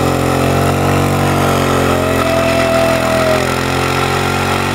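Bajaj Maxima Z three-wheeler's engine running steadily as it climbs a steep grade, with a brief higher tone rising and falling in the middle.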